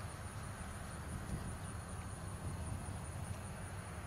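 Outdoor ambience: a steady, high-pitched insect drone over a low rumble.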